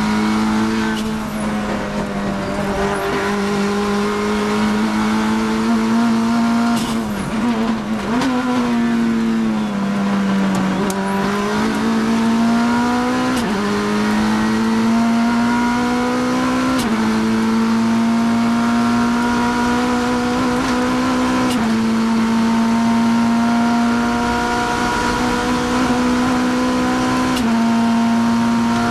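Onboard engine sound of a Kia GTS race car at race pace. The engine note wavers and drops while slowing through a corner about 7 to 11 seconds in. It then pulls hard, rising in pitch and falling back suddenly at four upshifts a few seconds apart as the car accelerates down the straight.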